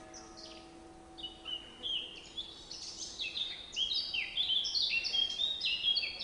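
Several songbirds chirping and singing in short, mostly falling notes, which come thicker from about two seconds in. A faint steady hum sits underneath for the first three seconds.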